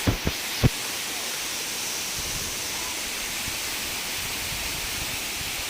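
Steady rush of a waterfall, an even hiss. Three short knocks come in the first second.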